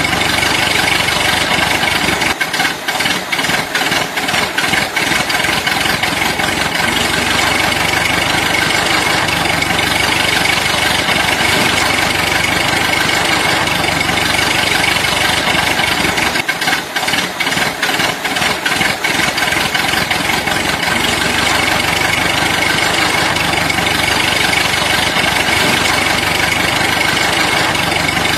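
A small machine running steadily with an engine-like sound and a constant high whine. Twice, for a few seconds each, the low rumble drops away and quick clicking takes over.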